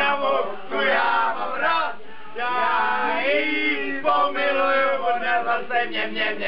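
Two men singing together in a chant-like way, holding one long note about halfway through.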